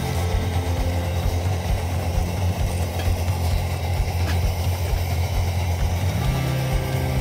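Background music with a low, steady bass line whose notes change in steps, over a regular low pulse.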